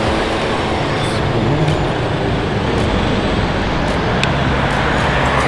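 Road traffic on a busy city street: motor vehicles' engines and tyres going by in a steady, loud wash of noise with a low engine hum.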